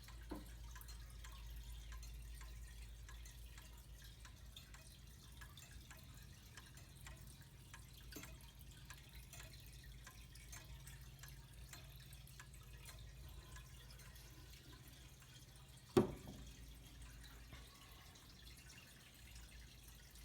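Gustav Becker pendulum wall clock ticking faintly and evenly, with one sharper knock about sixteen seconds in.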